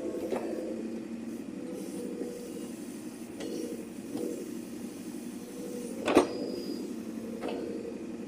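Backhoe loader's diesel engine running steadily while digging, with several sharp knocks from the working machine, the loudest about six seconds in.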